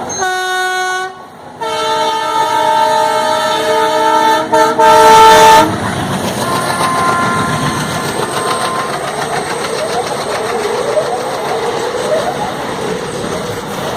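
Indian freight train locomotive's horn: a short blast, then a long blast of about four seconds that is loudest near its end. The train then runs on with a steady rumble of wagons on the rails.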